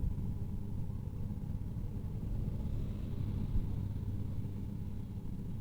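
Engine of farm machinery running steadily with a low rumble.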